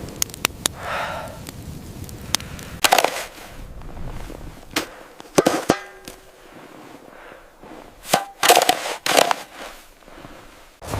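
A string of sharp clicks and cracks, with louder clustered bangs about three seconds in, halfway through and near the end. One of the bangs leaves a brief ringing tone.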